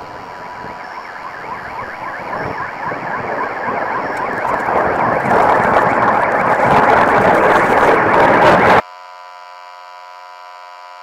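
Designed static-and-distortion noise with a rapid repeated chirping grows steadily louder, then cuts off suddenly near the end and gives way to a steady electronic buzz: the sound of a video signal breaking up and dropping out.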